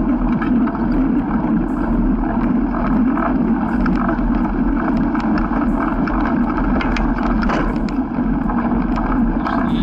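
Fat bike ridden through deep snow on nearly deflated tyres: a steady noise of the tyres pressing through the snow and the bike rattling over it, with wind on the microphone.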